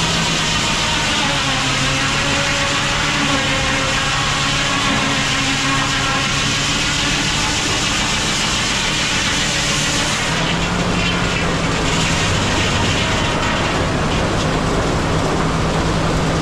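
A large engine running steadily and loudly, its pitch shifting slightly now and then.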